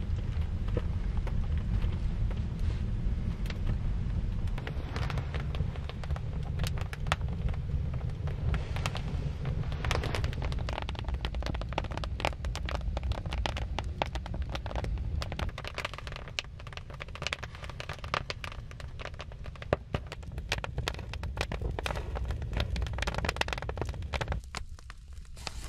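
Dense crackling and rustling, many small sharp snaps one after another, over a steady low rumble that fades out near the end.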